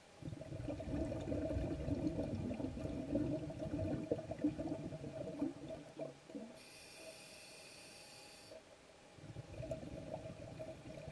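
Scuba diver breathing through a regulator underwater: a long rumbling gush of exhaled bubbles, a short hissing inhale a little past halfway, then bubbles again near the end.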